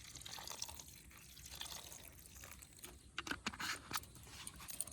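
Energy drink poured onto homemade stale-rice fish bait, a soft liquid pouring and dribbling, followed by scattered clicks and crackles in the second half.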